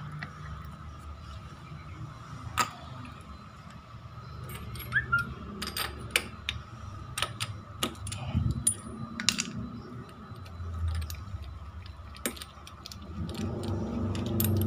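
Irregular metallic clicks and clinks of a tubular spark-plug spanner being worked on a two-stroke motorcycle engine's spark plug, taking the plug out to read its colour.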